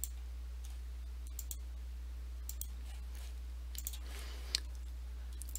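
Computer mouse clicking a handful of times, each click a quick press-and-release double tick, over a steady low hum.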